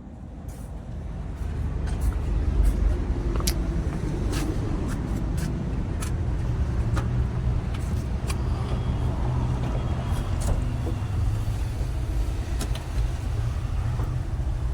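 A vehicle engine running with a steady low rumble that swells up over the first couple of seconds, with scattered sharp clicks and knocks.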